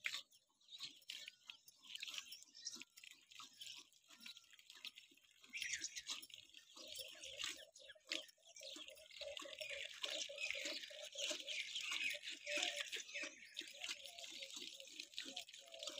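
Milk squirting into a steel pot as a cow is milked by hand, a hissing stream with each pull at about two to three squirts a second, getting louder about a third of the way in.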